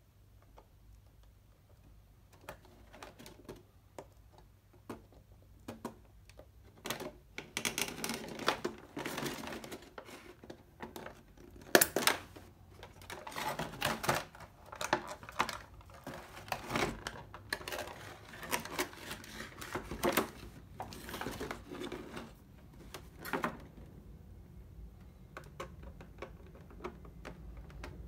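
Hands handling a thin black plastic packaging tray and the RC helicopter parts in it: scattered sharp clicks at first, then from about a quarter of the way in a long, dense run of plastic clicking and rustling, thinning back to sparse clicks near the end.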